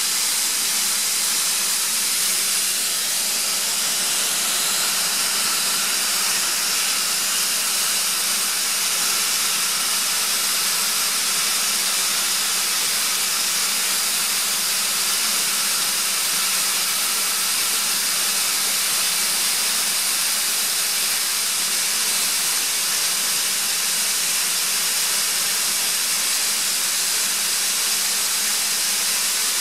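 Atlas Copco ZT110 two-stage oil-free screw air compressor running, a loud, steady hiss of rushing air over a faint machine hum, unchanging throughout. The controller reads about 7 bar at the compressor outlet and shows the machine loaded, so it is compressing air.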